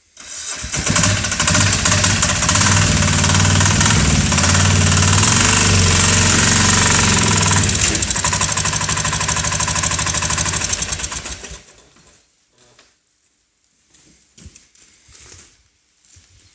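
ATV engine running steadily under load as the four-wheeler is brought up onto a snowmobile loading ramp. It cuts off at about eleven and a half seconds, leaving only a few faint knocks.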